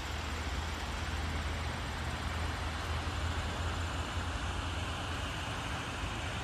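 Waterfall rushing: a steady, even noise with a low rumble underneath that does not change.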